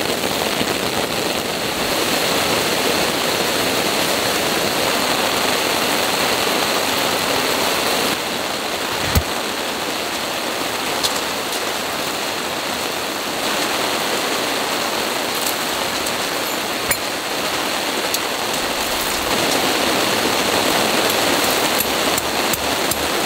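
Torrential rain pouring down: a loud, steady, dense hiss of heavy rainfall, with a single soft thump about nine seconds in.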